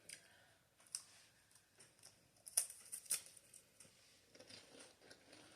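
Faint crunching as a crisp Italian pastry cookie is bitten and chewed: a few sharp crackles, the loudest two close together about two and a half to three seconds in.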